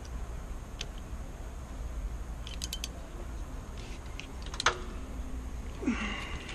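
Small clicks from a hand crimping tool working on thin wires: a quick run of about four clicks around two and a half seconds in, then one sharp click near five seconds, over a steady low hum. A brief squeak follows near the end.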